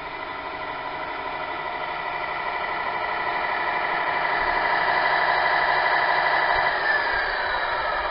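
Tamiya 1/14 RC Volvo tanker truck running, a steady mechanical whine that grows louder as the truck drives up close. About seven seconds in, one tone falls in pitch as the water-spray pump winds down and the spray stops.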